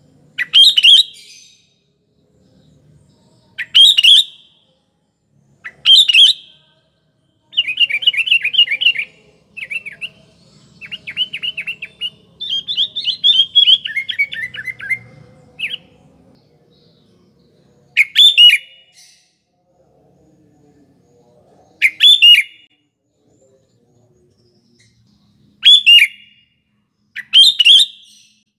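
Sooty-headed bulbul (kutilang) singing: short loud phrases every few seconds, with a longer run of rapid chattering notes in the middle.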